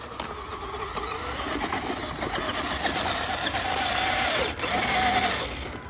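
Electric motor and gearbox of a Tamiya King Hauler RC truck whining as it drives over rough ground. The pitch rises and falls with the throttle, with two short pauses near the end.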